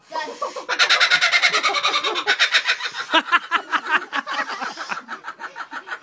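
Laughing kookaburra calling: a rapid run of chuckling notes, about ten a second, that swells loud about a second in and then gradually fades.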